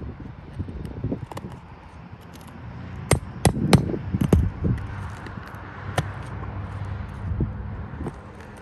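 Sharp knocks and scraping of a hand tool prying and tapping at nails in old, brittle 3-tab asphalt roof shingles, with a cluster of knocks about three to four seconds in and another about six seconds in.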